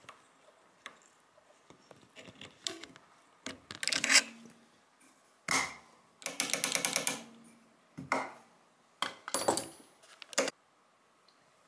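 Scattered metallic clicks, scrapes and clinks from pliers and a coil spring on its guide rod being worked into a steel Stgw. 57 trigger housing, with a quick run of rapid ticks a little past the middle.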